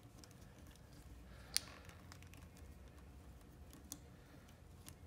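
A few faint, sharp clicks and taps of small parts being handled while working on motorcycle wiring, the loudest about a second and a half in, over a faint low hum.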